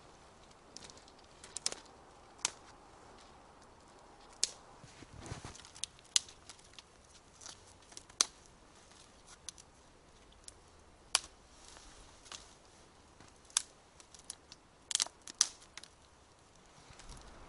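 Dry twigs and thin branches cracking as they are broken up for firewood: a series of sharp snaps at irregular intervals, about a dozen in all.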